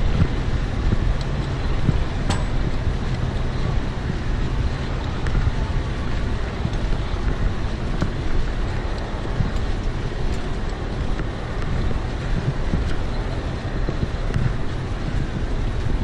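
Steady low rumble of a Pierce aerial ladder truck running its aerial hydraulics as the ladder raises, with wind noise on the microphone. There is a light click about two seconds in.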